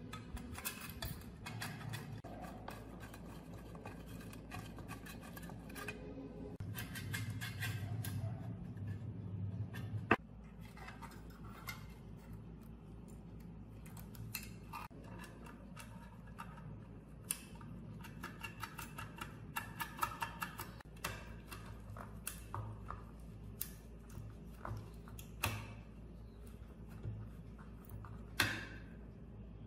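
Small clicks, taps and rubbing of plastic and metal parts as a mini air blower's fan housing and switch block are fitted onto its metal motor base by hand, with a sharp click about ten seconds in and a short scrape near the end as a screwdriver works on it.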